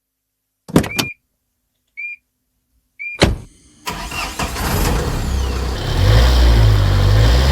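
Car sounds: a click about a second in, two short high beeps at about two and three seconds, then a car engine starting and revving, its low rumble building toward the end.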